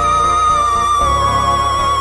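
Background music: a single held, wavering melody note over a low pulsing bass.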